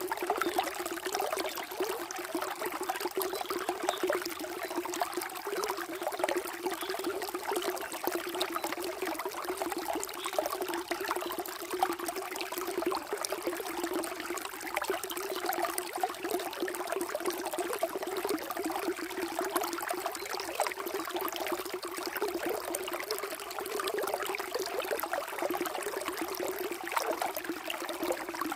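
Water flowing and trickling steadily, with an unbroken, even rush.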